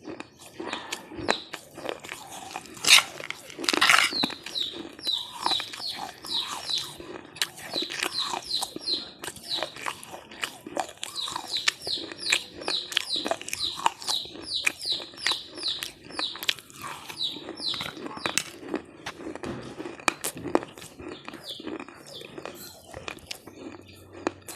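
Close-up chewing and crunching of a crunchy snack, with many sharp crunches and mouth clicks. A bird chirps in quick falling notes, about three a second, through the middle.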